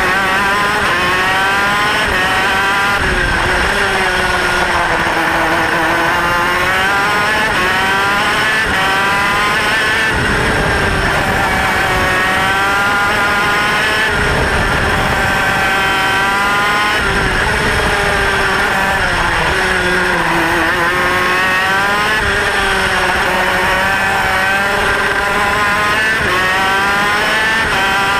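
Two-stroke racing kart engine heard onboard, revving up along the straights and dropping off into the corners. Its pitch climbs and falls again and again, every few seconds.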